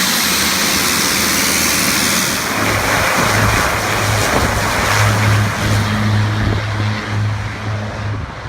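Small propeller plane's engines running loud at the Lukla runway: a steady rush with a low propeller hum that comes in about two and a half seconds in and fades near the end.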